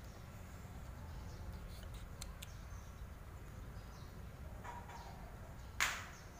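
Quiet eating sounds from a ceramic bowl of spicy instant noodles: light clicks of wooden chopsticks and a metal spoon against the bowl, with one sharp, louder knock near the end.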